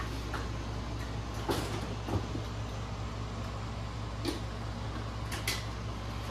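Light clicks and knocks of tools and small metal carburetor parts being handled as the float bowl is taken off a motorcycle carburetor, about half a dozen spread out, over a steady low hum.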